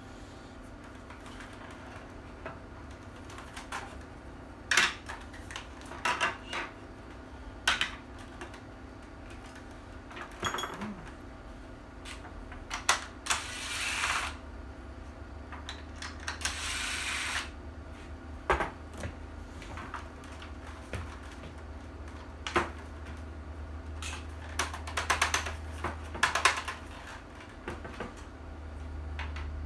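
Hard plastic rifle parts and tools clicking and knocking as a replica pulse rifle is taken apart, with two short runs of a cordless drill driving out screws in the middle.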